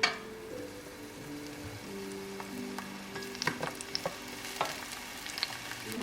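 Food frying in a pan: a steady sizzle of hot oil with scattered crackling pops, opening with a sharp knock. Soft background music plays underneath.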